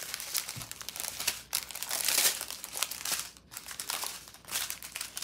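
Small clear plastic bags of diamond-painting drills rustling and crinkling as a strip of them is handled. The crinkling is loudest about two seconds in, with a brief lull a little past three seconds.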